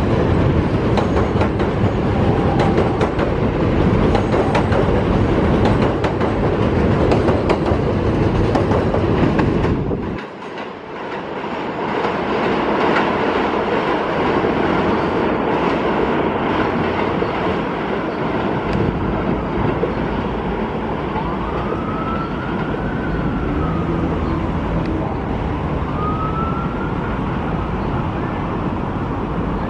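New York City subway train running, a loud steady rumble and rail clatter. About a third of the way in the sound briefly drops away, then the train noise continues, with two short rising-and-falling whines near the end.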